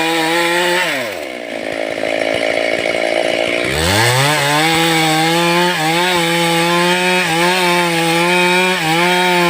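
Stihl two-stroke chainsaw running at high revs. About a second in, the engine note drops sharply to low revs and stays there for about two and a half seconds, then climbs back up and holds steady at high revs with a few brief dips.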